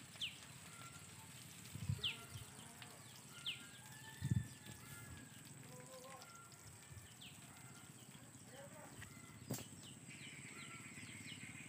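Faint bird chirps: short, sharp, falling notes every second or two, over a quiet hiss. A few soft low knocks come about two and four seconds in, and a single click comes later.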